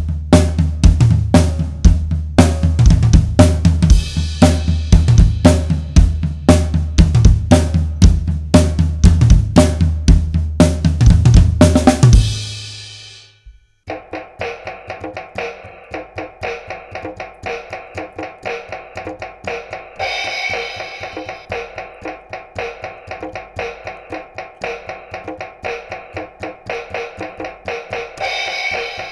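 An acoustic drum kit played fast and hard, with kick, snare, toms and cymbals, for about twelve seconds, then the hits stop and the cymbals die away. After a short gap, a toy electronic Finger Drums set takes over. Fingers tapping its little pads trigger quieter electronic drum and cymbal sounds with far less bass.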